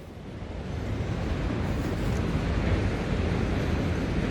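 Ocean surf breaking and washing up the beach, mixed with wind on the microphone: a steady rushing noise that swells over the first second.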